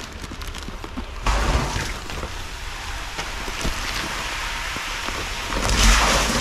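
Water being poured out of plastic bags of shrimp larvae into a plastic tank: a steady splashing hiss with two louder gushes, one just after a second in and one near the end.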